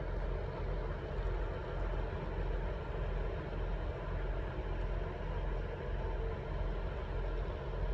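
Diesel train engine idling: a steady low rumble.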